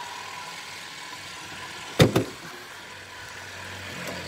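Two sharp knocks in quick succession about two seconds in, over a low steady background hum.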